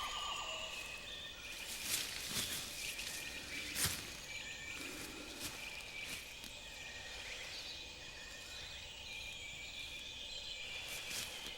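Outdoor nature ambience: a steady background hiss with high, thin chirping that carries on throughout, and a few sharp clicks about two and four seconds in.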